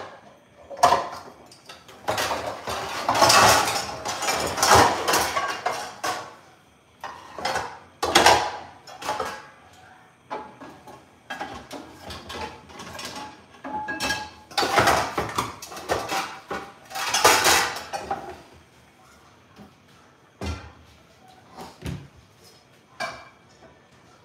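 Pots, pans and metal kitchen utensils clattering, knocking and scraping on a stovetop and counter, coming in irregular spells with short lulls between them.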